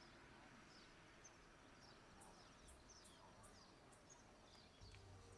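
Near silence with faint background noise and scattered short, high bird chirps.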